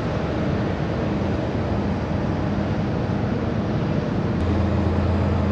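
Steady mechanical hum and rush of an airport ground support cart running beside a parked airliner, the low hum growing stronger about four seconds in.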